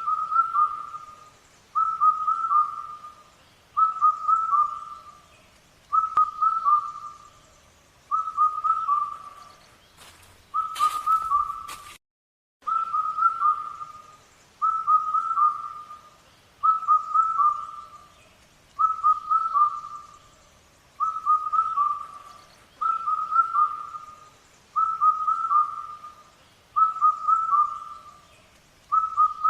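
A bird calling over and over: a short whistled phrase of a few notes, repeated about every two seconds. Near the middle there is a brief burst of noise and then a moment of silence.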